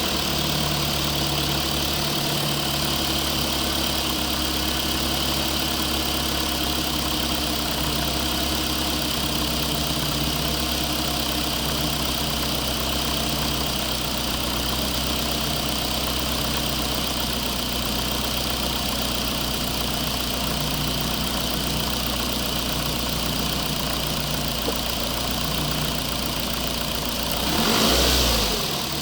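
Remote-control construction machine running with a steady idling-engine sound, swelling louder briefly about a second before the end.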